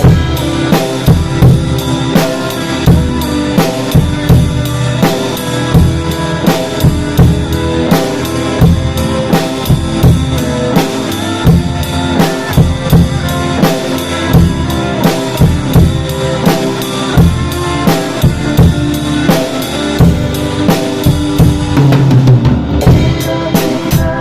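Drum kit played along to a recorded contemporary Christian worship song in beginner's drum practice: a steady beat of kick drum and snare over the song's backing track.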